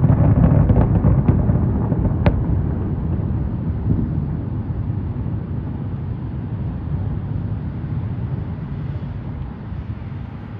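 Aerial fireworks shells bursting overhead in a loud volley, with a spatter of crackling reports in the first second or so and a single sharp crack about two seconds in. After that a low rolling echo slowly dies away.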